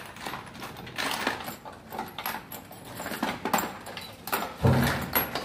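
Small clicks, clinks and rustling of hand tools and parts being handled during repair work on an exhaust fan motor, with a louder low-pitched sound lasting under a second near the end.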